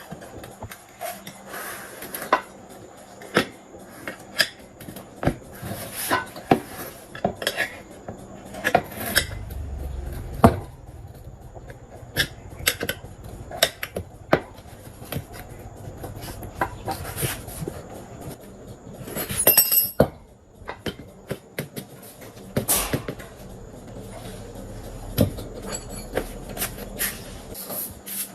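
Metal tools and parts clinking and knocking against each other at irregular intervals, as in hand work on a workbench, with a brief louder rattle about two-thirds of the way through.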